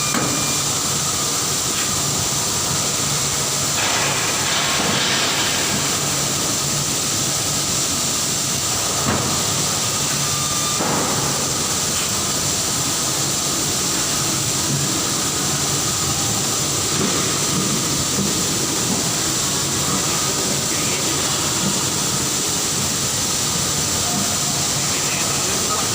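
Steady industrial noise with a constant hiss from an automatic spot-welding machine, with a few brief louder spells about four, nine and eleven seconds in.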